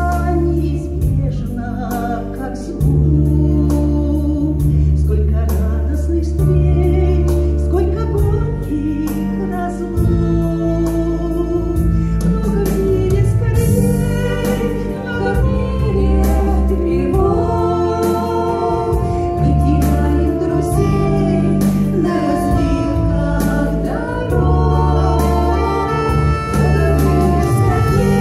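Two women singing a Christian song together into microphones over an amplified instrumental accompaniment, with sustained bass and keyboard chords and a steady beat.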